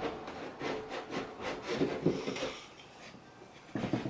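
Wooden drawer being slid and handled in a vanity, wood rubbing and knocking in short irregular strokes, then a louder knock near the end.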